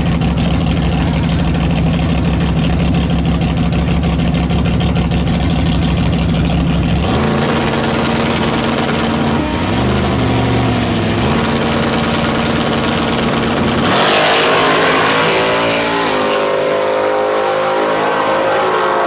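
Drag-race engines at the starting line: a loud, choppy low engine note, then a steadier held rev from about seven seconds in. About fourteen seconds in comes a sudden loud surge as the nitrous pickup truck and the Cobra launch. Their revs then climb in steps as they shift gears.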